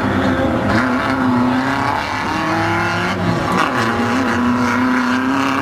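Off-road race buggy engine running hard, its pitch holding, then rising and falling. A second engine note climbs briefly in the middle.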